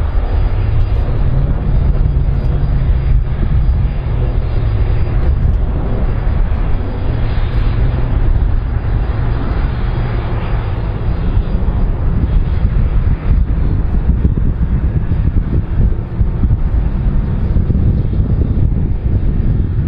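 Jet engines of a twin-engine widebody airliner moving along the ground, a steady deep rumble and hiss, with wind buffeting the microphone.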